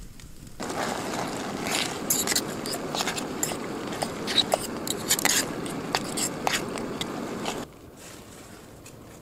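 Campfire crackling with a steady hiss and many sharp pops, cutting in about half a second in and cutting off abruptly near the end.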